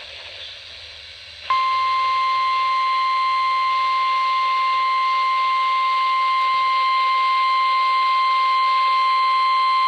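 Weather radio warning alarm tone: one loud, steady, high-pitched tone that starts abruptly about a second and a half in, after faint radio hiss. It signals that a warning broadcast follows, here a severe thunderstorm warning.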